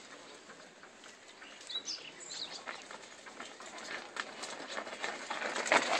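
Mountain bikes climbing a loose dirt trail, tyres crunching and rattling over soil and stones, growing louder toward the end as the riders come close. A bird chirps briefly about two seconds in.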